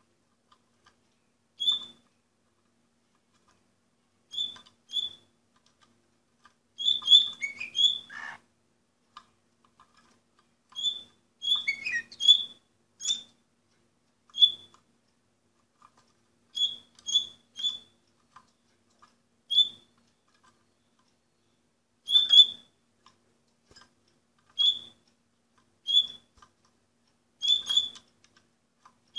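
Orpheus canary giving short, high chirps, singly or in quick pairs every second or two, with two brief falling phrases about seven and twelve seconds in.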